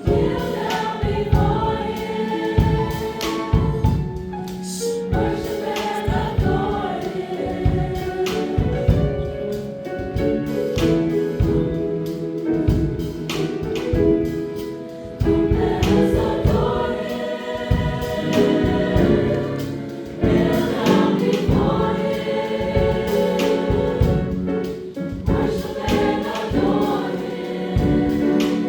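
Choir singing over instrumental accompaniment with a steady beat.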